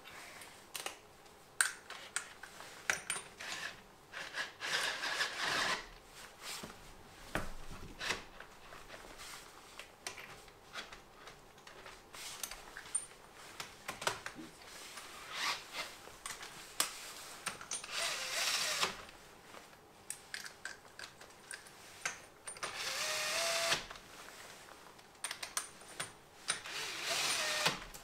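Cordless drill with a 22 mm socket running wheel nuts onto a wheel hub in several short runs of a second or two, with metal clicks and knocks between them.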